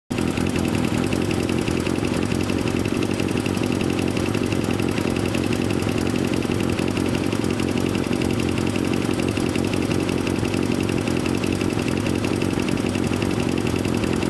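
Yamaha XJR400's air-cooled inline-four engine running steadily at idle. It starts abruptly and holds an even, unchanging note throughout.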